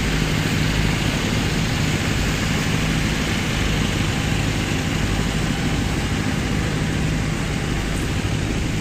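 Steady low drone of running generator engines with a constant hum, under a full noisy wash.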